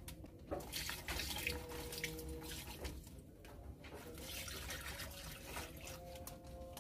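Pineapple-juice and soy-sauce marinade poured from a jug into a plastic bag of chicken pieces, a steady liquid pour with a few light knocks of a wooden spoon against the jug.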